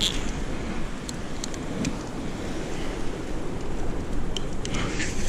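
Steady wind noise on the microphone over surf, with scattered light clicks from a rope pulley and carabiner being handled on the rope.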